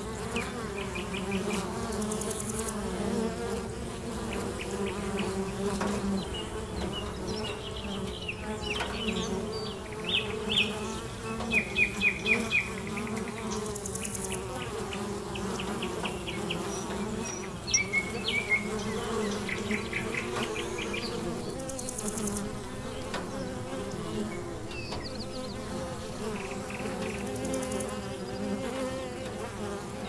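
Steady buzzing drone of many flying insects, with short, rapid chirping trills over it, loudest in a burst about a third of the way in and again a little after halfway.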